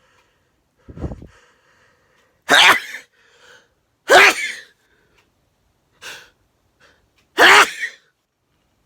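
A person sneezing three times in a row: two loud sneezes close together, then a third about three seconds later.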